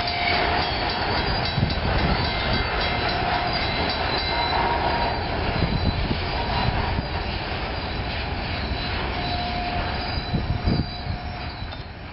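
Freight train boxcars rolling past, with a steady rumble of wheels on rail and thin wheel squeals coming and going as the cars take a curve. The sound fades near the end as the last cars move away.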